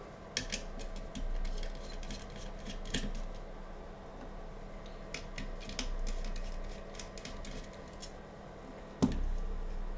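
Small metal clicks, taps and scrapes as a cooling plate is pried off a router's circuit board, with a sharper knock about nine seconds in. A steady low hum runs underneath.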